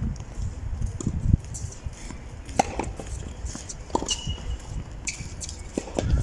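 Low wind rumble on the microphone with scattered light taps of footsteps and a tennis ball on a clay court, and two short high chirps after the middle.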